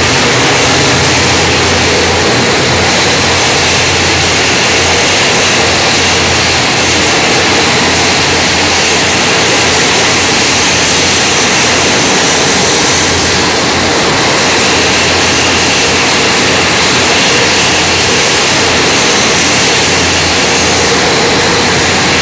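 Loud, steady machinery noise of a hot-fill juice bottling line: a continuous roar with a low hum underneath.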